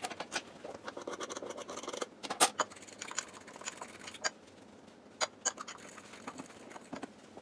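Food-prep handling noises at a kitchen counter: light scrapes and a few sharp clicks and taps as hands work over a metal mixing bowl and a cutting board, the loudest click about two and a half seconds in.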